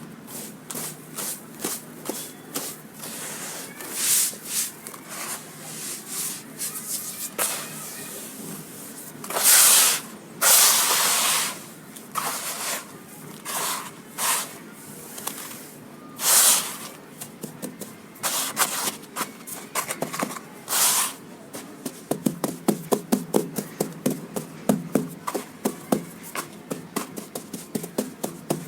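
Crunchy dried sand crumbling into water: a series of short crunches, several longer hissing bursts around ten seconds in, and a fast run of crackling crunches near the end.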